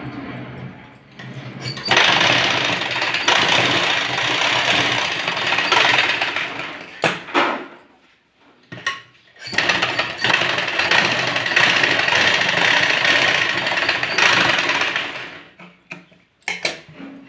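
Sewing machine running as it stitches a seam in cotton fabric, in two steady runs of several seconds each with a short pause between them. A few short knocks come in the pause and near the end.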